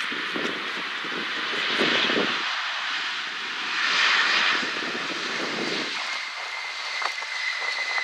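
Air Canada Boeing 787-9 Dreamliner's jet engines on the landing roll-out: a heavy rushing noise that swells twice. About six seconds in a high, steady engine whine comes in, slowly falling in pitch.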